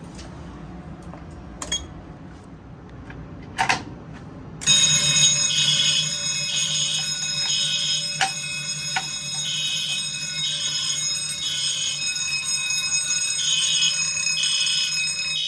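A few clicks and a knock, then about a third of the way in, fire alarm bells suddenly start ringing continuously. A sounder pulses over them in a code-3 pattern: three pulses, then a pause, repeating.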